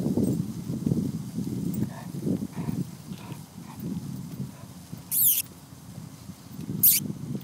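Footsteps of a walker and a large puppy's paws on a wet road, irregular and low. Two brief high-pitched sounds stand out, about five and seven seconds in.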